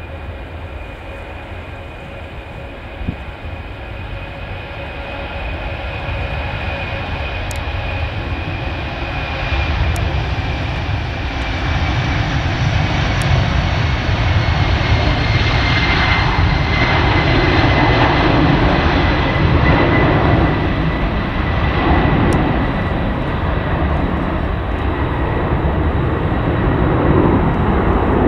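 Boeing C-17 Globemaster III's four Pratt & Whitney F117 turbofans at take-off power. The noise grows louder as the jet rolls down the runway, lifts off and climbs out, with a high whine that slowly falls in pitch over a deep rumble.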